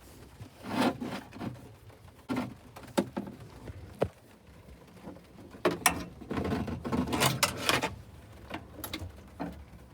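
Hand-work noise as the old choke cable is pulled out through the bulkhead: a few separate knocks and clicks, then a couple of seconds of scraping and rustling from about halfway in.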